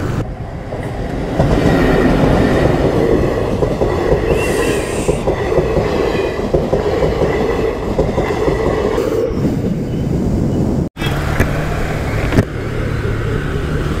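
A train passing close by, its noise thick with rapid clatter. About eleven seconds in the sound cuts off abruptly and gives way to a steady low hum.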